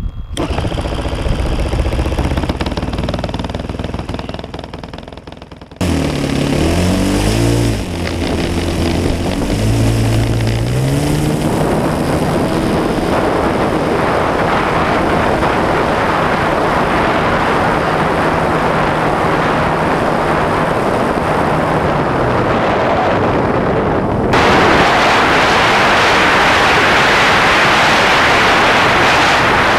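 YS 115 FZ-S supercharged single-cylinder four-stroke model aircraft engine, first spun with an electric starter, then running about six seconds in, its pitch rising and falling as the throttle is worked before settling into a steady run. About 24 seconds in, the sound jumps to a louder, even engine-and-wind rush as the plane flies, heard from a camera strapped to the wingtip.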